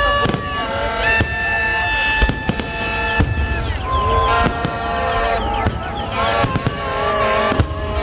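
Fireworks going off in a string of sharp bangs, several every couple of seconds, amid a crowd. Many held high tones sound throughout, some wavering up and down near the end.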